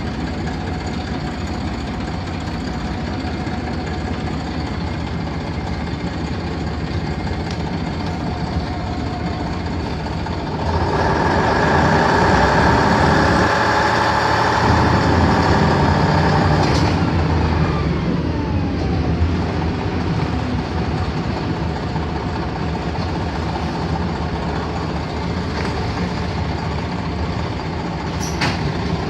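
LiAZ-5256 city bus's YaMZ-236 V6 diesel running under way, heard from aboard the bus. About a third of the way in it grows louder with a whine as the bus accelerates, then eases off with a falling whine; a few sharp clicks come near the end.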